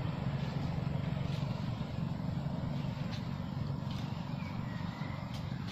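Steady low rumble of a motor vehicle running on the road, with a few faint high chirps over it.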